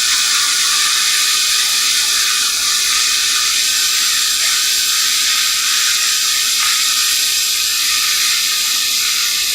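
TIG welding arc from an AHP AlphaTIG 200x running a bead, a loud, even hiss held steady without a break.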